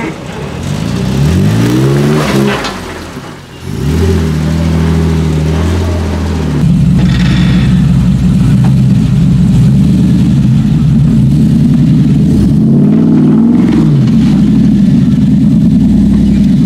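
Jeep Wrangler engine revving under load as it climbs rock ledges. The revs rise and fall about a second in, the engine then runs steadily under throttle, and a second rise and fall comes about thirteen seconds in.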